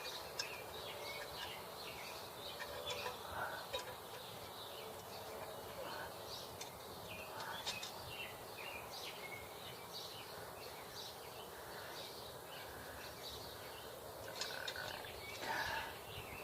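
Birds chirping: many short, scattered chirps over a faint steady background hiss.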